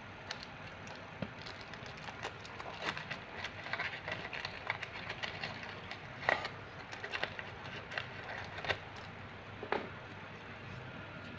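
Scattered light clicks and crackles, thickest in the middle and dying away near the end, over a steady background noise.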